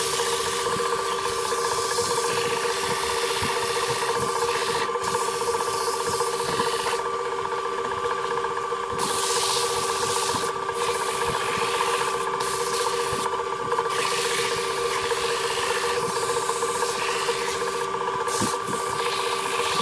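Wood lathe motor running with a steady hum while hand-held sandpaper rubs against the spinning wooden candy box, a dry sanding hiss that drops out briefly several times as the paper is lifted and pressed again.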